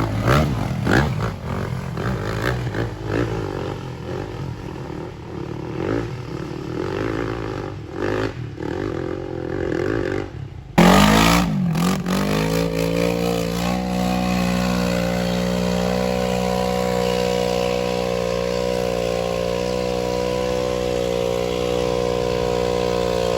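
A quad's engine revving in uneven bursts with some clatter during a hill-climb attempt. About eleven seconds in, the sound changes abruptly to a steady, even engine note held at constant throttle.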